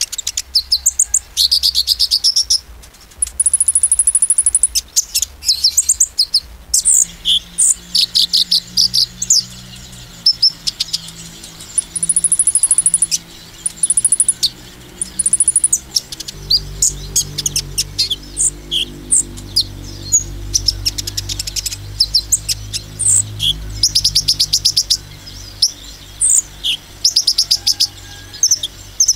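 Male kolibri ninja sunbird singing in bursts of rapid, high-pitched chirps and trills ('nembak'), with a few fast buzzing trills held for about a second.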